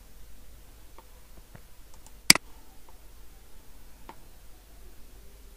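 A computer mouse clicking once, sharply, a little over two seconds in, with a few faint ticks before and after it, over a low steady hum.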